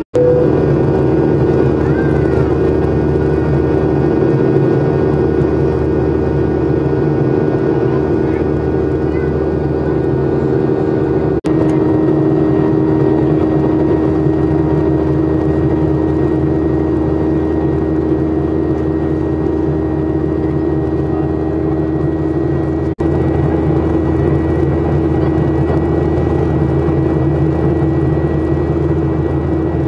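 Jet airliner's engines and airflow heard from inside the cabin in the climb after take-off: a steady loud drone with several held tones in it. The sound cuts out for an instant twice, about eleven and twenty-three seconds in.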